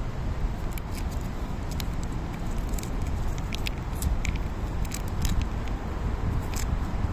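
Cat licking a lickable treat from a squeeze pouch: quick, irregular wet clicks of its tongue and mouth. They sit over a steady low background rumble.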